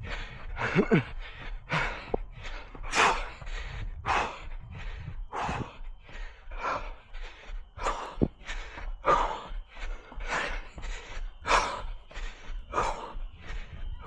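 A runner breathing hard mid-run, about two loud breaths a second in a steady rhythm.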